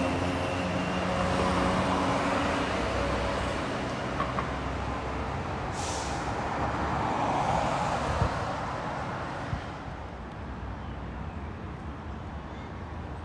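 Road traffic on a city street: vehicles pass, the loudest swells about a second in and around seven seconds, with a short hiss about six seconds in; it grows quieter over the last few seconds.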